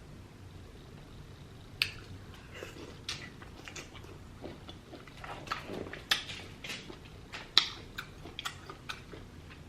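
A person chewing and smacking food with the mouth: irregular wet clicks and smacks, sparse at first and coming more often from about two seconds in.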